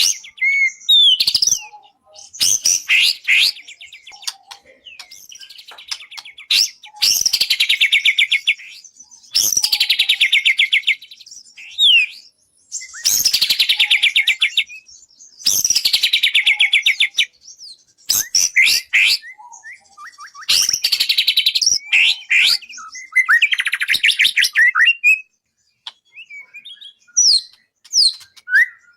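White-rumped shama (murai batu) singing: repeated phrases of very fast trilled notes, each about two seconds long, alternating with short sweeping whistles.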